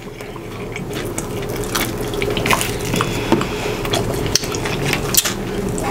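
Eating at the table: a fork clicking against a plate a few times over wet, saucy sounds of Alfredo-sauced pasta being eaten close to the microphone.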